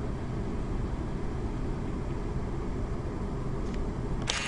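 Steady low outdoor rumble. Just before the end, a sudden loud noisy burst cuts in.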